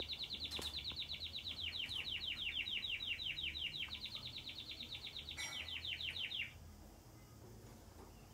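Domestic canary singing a fast trill of repeated, quickly falling notes, about eight a second, that stops abruptly about six and a half seconds in.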